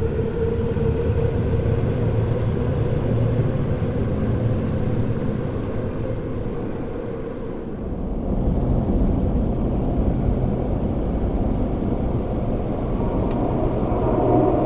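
Low rumble of an MTR West Rail Line train in an underground station that eases off about halfway. Then a train is heard approaching through the tunnel: the rumble grows and a steady whine joins it near the end.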